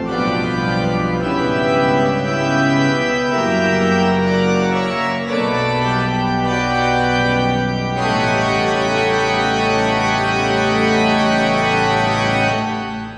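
Organ playing slow, sustained chords, with a brighter, fuller chord coming in about eight seconds in. The final chord is released near the end and fades into the room's echo.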